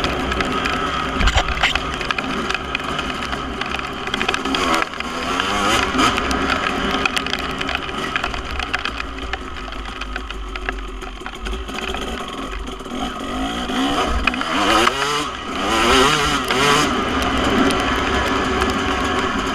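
Single-cylinder 250 cc two-stroke engine of a KTM SX250 dirt bike, breathing through a Pro Circuit R-304 stainless shorty silencer, ridden hard on and off the throttle. Its pitch climbs and falls sharply about five seconds in and again several times around the fourteen-to-sixteen-second mark, with a few sharp knocks along the way.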